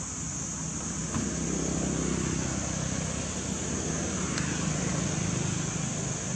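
A motor vehicle's engine humming steadily. It grows louder about a second in and eases off again near the end.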